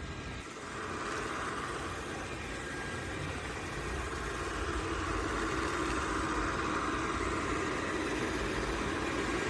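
MOVA S10 Plus robot vacuum running, its suction fan and brushes making a steady whir that grows a little louder about a second in.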